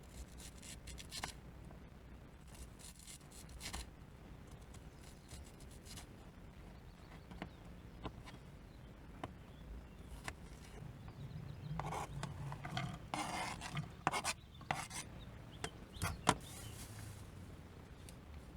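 Food being prepared by hand: rubbing and scraping with scattered light knocks of utensils. There is a busier run of scraping and sharp clicks from about twelve to seventeen seconds in.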